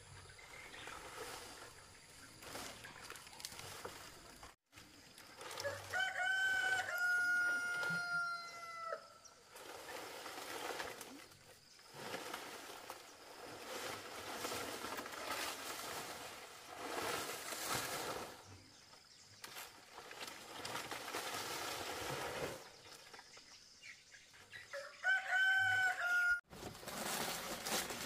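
A rooster crows twice: one long crow about six seconds in and a shorter one near the end. Between the crows there is the rustle and crackle of palm fronds being handled and laid as roof thatch.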